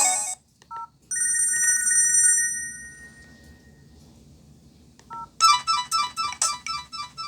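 Nokia ringtones played through an LG B470 phone's speaker. A melody cuts off at the start, a short warbling trill tone sounds and fades, and after a pause a new ringtone starts about five seconds in with fast repeated high beeping notes.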